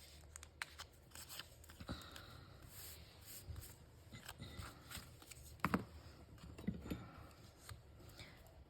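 Light paper rustles and small taps of cut cardstock pieces being handled and set down, with one slightly louder tap a little past the middle.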